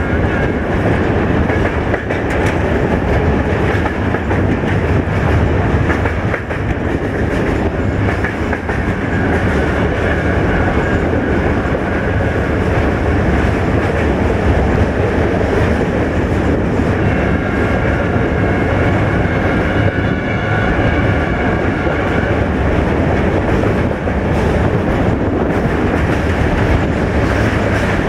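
CFR LDH1250 diesel-hydraulic locomotive and its wagons on the move, heard from aboard: a steady rumble of engine and wheels on the track, with a high ringing squeal for a few seconds past the middle.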